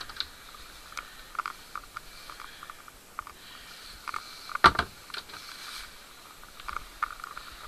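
Handling noise from a handheld camera moved about inside a small cabin: scattered light clicks and knocks, with one sharper, louder knock a little past halfway.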